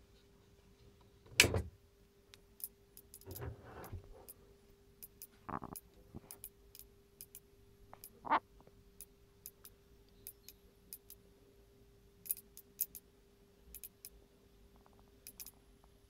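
Powercool computer power supply crackling: irregular sharp clicks and pops scattered throughout over a steady faint hum, with a louder knock about a second and a half in. A strange crackling that the owner takes for a sign the unit may be broken.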